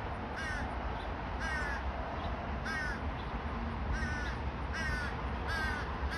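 Crows cawing: about six short, slightly falling caws spaced roughly a second apart, the repeated begging calls of a fledgling crow being fed by its parent. A steady low rumble runs underneath.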